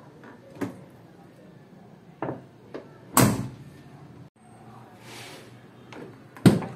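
A van's side door is handled with a few small clunks and then slammed shut about three seconds in, leaving a short ringing tail. After a cut, it is slammed shut again near the end with a sharp bang. The first slam is the door before a DIY fix meant to make it sound like new, and the second is after that fix.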